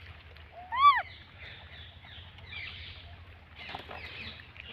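A single short, high-pitched animal call that rises and then falls in pitch, about a second in, over faint scattered chirping calls.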